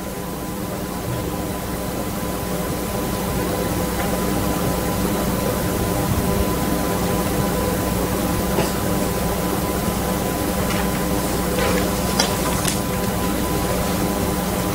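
Steady room tone: an even hiss with a low electrical hum, slowly growing louder, with a few faint knocks in the second half.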